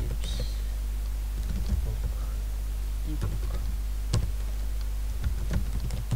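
Computer keyboard being typed on, keys clicking in short irregular runs over a steady low hum.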